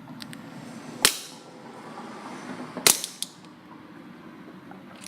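Hammer striking a plastic LED shoe remote twice, sharp cracking blows about two seconds apart, to break the casing open; a small rattle follows the second blow.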